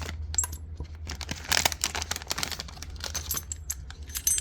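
Packaging with small aluminum lock followers being handled: irregular crinkling with many light clicks and taps, busiest around the middle.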